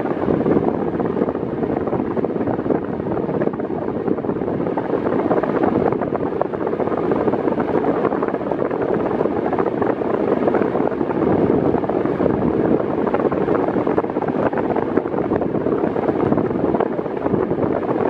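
Arno Silence Force table fan running on its lowest speed, its airflow blowing over the microphone as a steady rushing wind noise.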